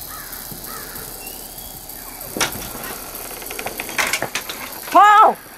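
A crow caws once, loud and close, near the end, with fainter caws at the start. A few sharp clicks and knocks come in between.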